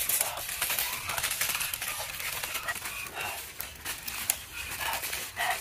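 Sheet of aluminium foil crinkling as hands fold and crumple it, a steady run of small quick crackles.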